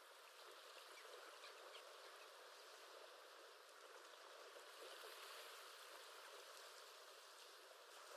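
Faint background recording of ocean waves: a steady wash of surf that swells slightly about halfway through.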